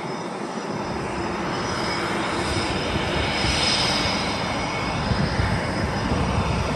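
A CF-18 Hornet's twin General Electric F404 turbofans running on the ground before taxi. The jet noise is a steady roar with a faint high whine, building slightly over the first few seconds.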